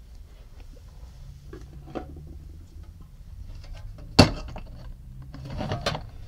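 Small clicks and handling noise of a metal petrol lighter being turned over in the fingers, with one sharp knock about four seconds in.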